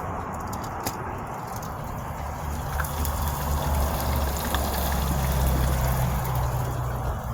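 Flour-battered venison frying in hot grease, a steady sizzle, with a low rumble that swells up in the middle.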